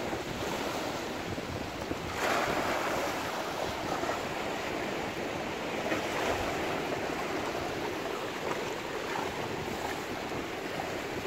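Sea surf washing and breaking over rocks: a steady rush of water with a stronger surge about two seconds in.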